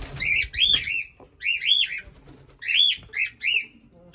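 Cockatiels calling: a run of short, arched, screeching calls, often in quick pairs, as their nest box is opened and checked.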